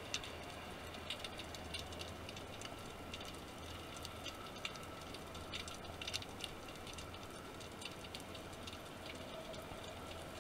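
Underwater ambience picked up by a camera in its waterproof housing: faint irregular clicks and crackles over a steady low hum.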